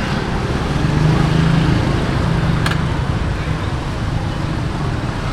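Street traffic noise: a motor vehicle engine running steadily, strongest about one to three seconds in, with a single sharp click near the middle.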